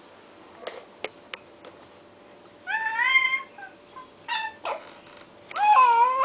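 Baby squealing: three high-pitched calls that bend up and down in pitch, the last, about five and a half seconds in, the loudest. A few sharp clicks come before them.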